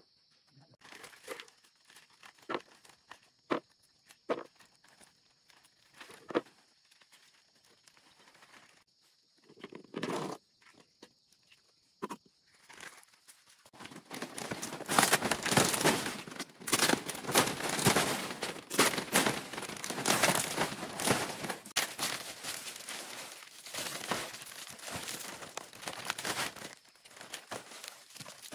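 Scattered steps and light knocks, then from about halfway in a continuous crumpling, crinkling and tearing of dry material being handled. A steady high-pitched tone runs under the first half and stops about halfway.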